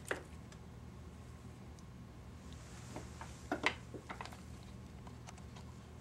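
Quiet room tone with a steady low hum, broken by a few small clicks and taps. The clearest taps come a little past three and a half seconds in.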